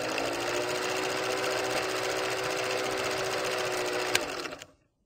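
Film projector sound effect: a fast, steady mechanical clatter with a motor hum that rises slightly in pitch as it gets going, a single sharp pop about four seconds in, then the clatter cuts off near the end.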